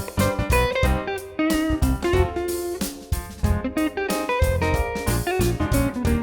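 Background music: a guitar-led instrumental with plucked notes over a steady bass beat.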